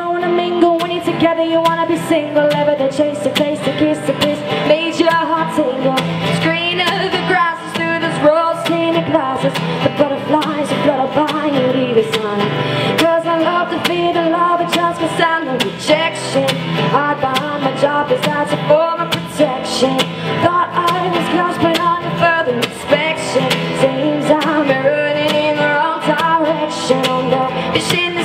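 A woman singing live to her own strummed acoustic guitar, the voice carrying the melody over a steady strum.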